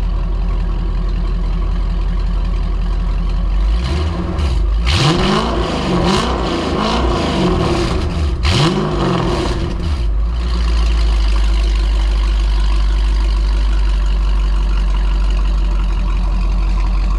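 Mercedes SL55 AMG's supercharged M113K V8 idling through a freshly installed custom Corsa exhaust, then revved in a few quick blips from about four seconds in, each rising and falling in pitch, before settling back to a steady idle.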